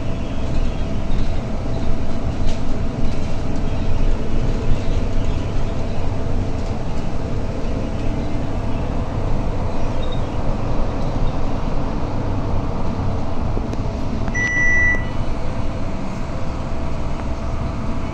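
Inside a new articulated city bus on the move: steady engine and road rumble. About fourteen seconds in, a short high beep sounds once.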